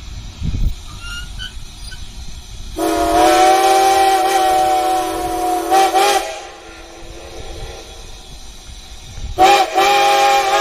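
Steam locomotive whistle blowing a chord: one long blast ending in a brief stutter, then about three seconds later a short toot followed by another long blast. This is the whistle signal for a grade crossing.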